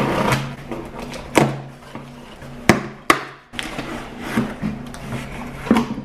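Cardboard box being pulled open and its flaps handled, rustling and scraping, then several sharp knocks as a pack of drink cans is lifted out and set down.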